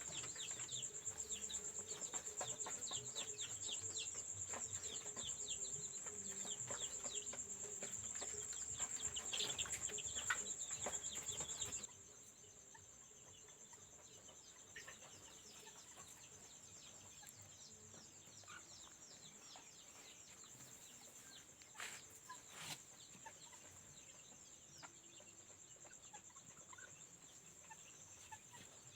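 Chicks hatched in an egg incubator peeping: many quick, high, falling peeps over a steady high-pitched whine. About twelve seconds in the sound drops suddenly to fainter, scattered peeps.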